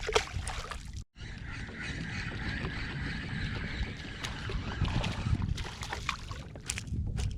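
Steady rush of water and wind around a small fishing boat on the water, with a few light clicks. The sound cuts out for an instant about a second in.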